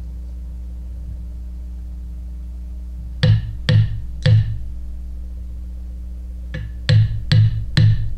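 Sharp knocks: three in quick succession about half a second apart, then after a pause another quick run of four, over a steady low hum.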